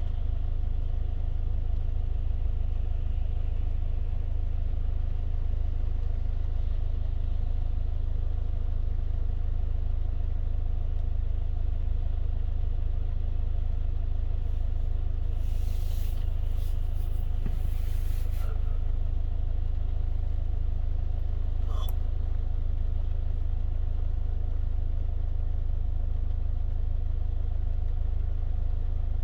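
Steady low rumble of a car driving in the rain. A few brief hissing swishes come a little past the middle.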